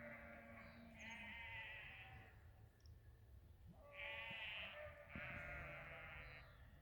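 A flock of sheep bleating faintly: several long, wavering bleats, some overlapping, come in three or four bouts.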